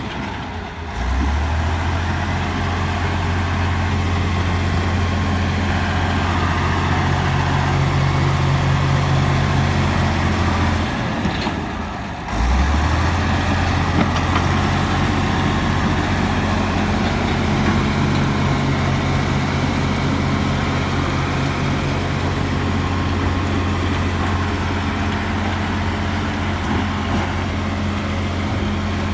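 Komatsu bulldozer's diesel engine running steadily under load. The engine note drops briefly just after the start and again about twelve seconds in, then picks back up.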